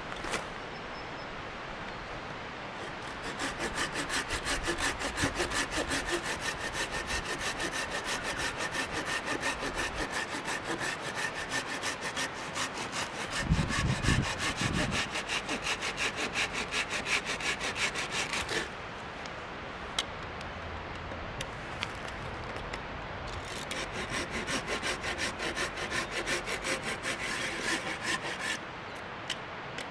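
Folding pruning saw cutting a dead branch with quick, even push-pull strokes for about fifteen seconds, then a pause, then a few more seconds of sawing. A dull low bump sounds about halfway through the first run of strokes.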